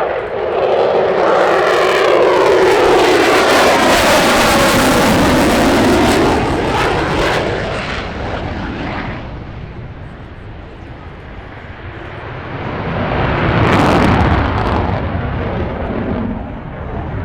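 Airplane engine noise as an aircraft flies past, loud with a sweeping whoosh from about a second in, then fading away by the middle. The engine noise swells again briefly near the end.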